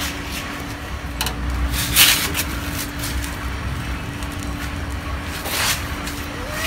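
A few brief rustling handling noises over a steady low hum, then a cat starts to meow right at the end.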